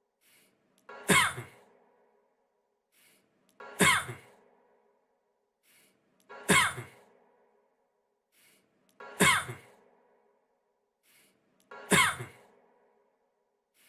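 A man's single short cough, looped: the same cough repeats identically five times, about every 2.7 seconds.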